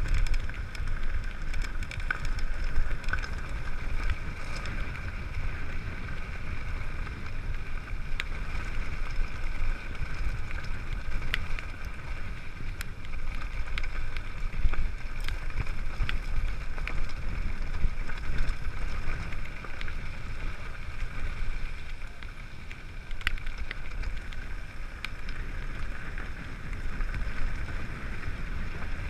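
Mountain bike descending a loose gravel track: wind noise on the camera's microphone, with tyres running over the gravel and scattered clicks and rattles from the bike.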